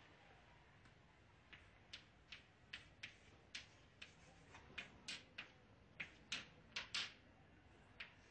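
Chalk writing on a blackboard: a string of short, sharp, irregularly spaced strokes and taps, about sixteen in all, coming closer together in the middle.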